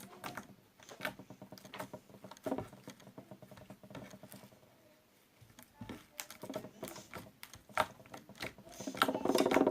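Slime being squeezed and stretched by hand, giving irregular wet clicks and little pops, quieter for a moment midway and denser and louder near the end.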